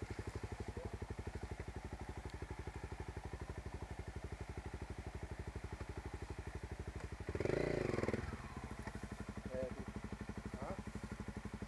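Dirt bike engine idling with a steady, even pulse, revved once for about a second past the middle, then back to idle.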